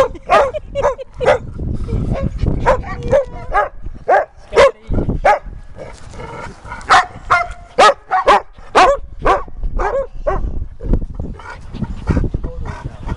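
Dogs barking over and over in short, sharp barks, often about two a second, with a short pause about halfway through.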